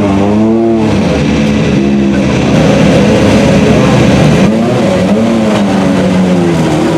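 Rally car engine revving hard, its pitch rising and falling several times as it accelerates and comes off the throttle.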